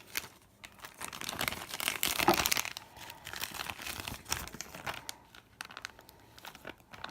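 A piece of plastic and paper crinkling as it is pressed and slid over a pan of eyeshadow powder. The crackling is densest a second or two in, then thins to scattered crinkles.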